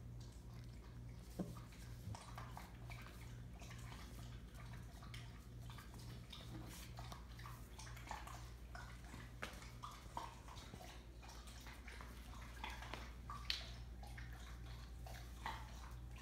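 Puppies lapping and chewing: a scatter of small wet clicks and smacks over a steady low electrical hum.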